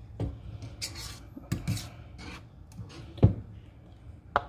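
Scattered knocks and clinks of small glass canning jars, a ladle and a plastic canning funnel being handled on a counter, with rubbing noise between them; the sharpest knock comes a little past three seconds in.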